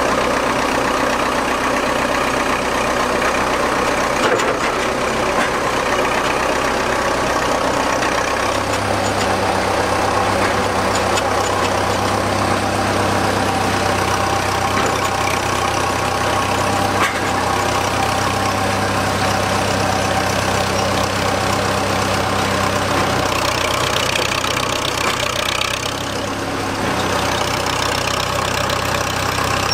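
Engine of a vintage Priestman Tiger cable excavator running steadily while the machine works. A steady low hum joins about eight seconds in.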